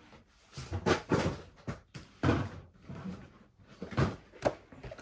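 Things being picked up, moved and set down by hand: a series of short rustling knocks, about five loud ones.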